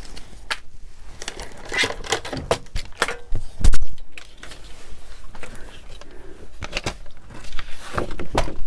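Paper being cut and handled: irregular snips, crinkles and clicks, with one louder knock a little under four seconds in.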